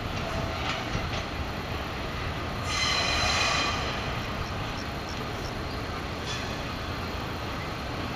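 Ohmi Railway 220 series electric railcar and a Hoki ballast hopper wagon rolling slowly through the station tracks, with a low rumble and a few faint clicks. About three seconds in, the wheels squeal high and shrill for about a second.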